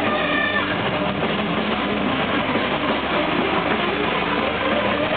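Loud live band music led by electric guitar, a thick continuous wash of sound with only a few clear notes near the start.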